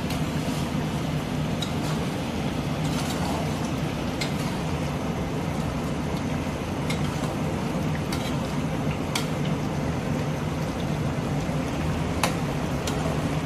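Chicken gravy simmering in a large aluminium pot over a gas burner, a steady bubbling hiss, with a metal spatula clinking against the pot now and then as it is stirred.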